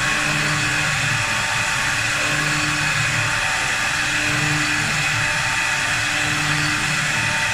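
4-axis CNC wood lathe running as it turns wood: a steady machine whir with a hiss, under a low hum that swells and fades about every second and a half.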